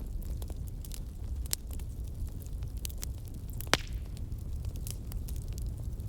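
Wood fire burning: a steady low rumble of flames with scattered sharp crackles and pops from the burning wood, one louder pop a little past halfway.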